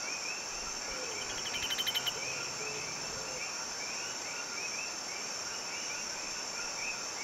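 Insects buzzing in a steady high drone, with short chirps repeating about twice a second. About a second and a half in, a brief rattle of rapid clicks grows louder and stops.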